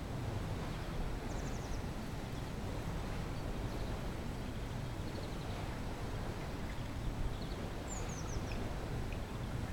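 Steady background rush of a zoo penguin enclosure, with a few faint high chirps over it and a quick falling run of chirps near the end.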